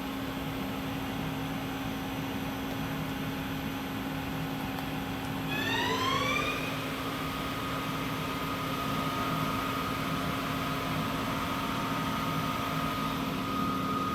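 Doosan Puma 4100LB CNC lathe's spindle running steadily, then speeding up about halfway through with a rising whine and holding the new, higher speed with a steady whine.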